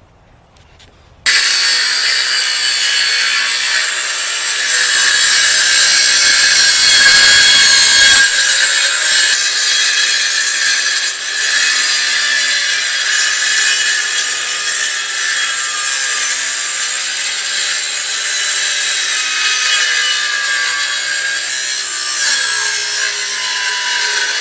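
Electric circular saw starting up about a second in and cutting steadily along the overhanging ends of treated 1x6 deck boards, trimming them flush along a chalk line; a long continuous cut with a high whine.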